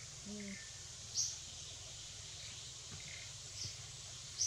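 Faint forest ambience: a steady background hiss with a few short, high chirps, about a second in and again near the end, and a brief low call just after the start.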